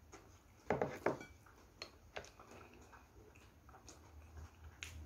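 Quiet eating sounds: chewing and a few soft clicks of plastic training chopsticks against dishes as food is picked up, the strongest pair about a second in.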